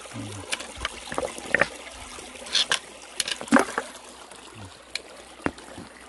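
Mountain stream trickling over rocks, with a few scattered sharp clicks and knocks; the loudest knock comes a little past halfway.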